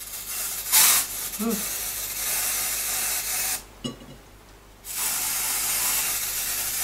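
An aerosol can of Dr. Oetker edible shimmer spray hissing in two long sprays, with a pause of about a second just past the middle.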